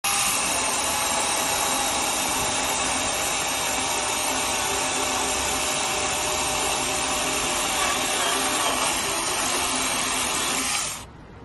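Battery-powered 4-inch mini chainsaw running steadily at full speed, an electric motor whine with chain noise. It cuts off near the end.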